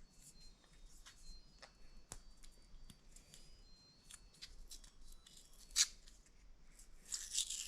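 Hands fiddling with Apple Watch packaging: scattered small clicks and scrapes, a sharper click near six seconds, then denser crinkly rustling near the end as the wrapping starts to give.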